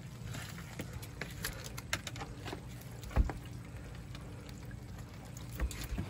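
Low steady engine hum on a fishing boat, under the scattered knocks and rustling of a wet catch being handled. A heavy thump about three seconds in, and a smaller one near the end, come from a metal pot of squid being knocked or set down on the deck.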